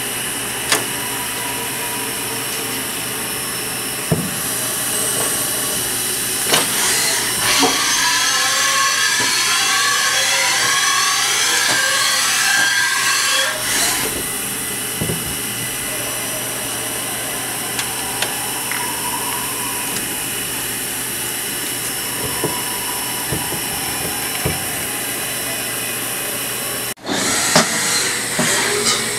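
Haas VF-5 CNC vertical machining center milling metal under flood coolant: steady spindle and cutting noise with the spray of coolant, chips and coolant ticking against the enclosure. A louder stretch of cutting runs from about five to fourteen seconds in, and the sound breaks off for an instant near the end.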